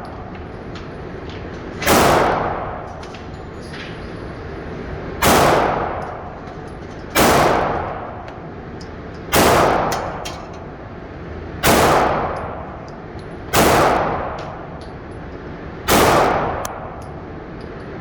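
Glock pistol fired seven times in slow, steady succession, about two seconds between shots, each report trailing off in an echo.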